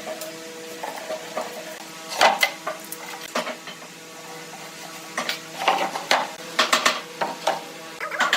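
Irregular knocks, clicks and clatter of tools and wood being handled in a workshop, over a steady hum of several held tones.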